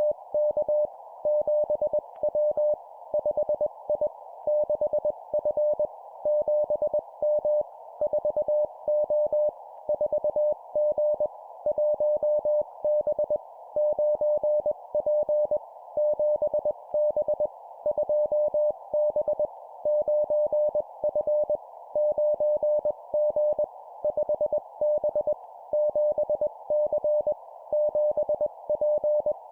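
Morse code (CW) sent at 20 words per minute: a single tone of about 600 Hz keyed into dots and dashes, in short two-character groups of letters and numbers with brief gaps between them, over a steady band of hiss.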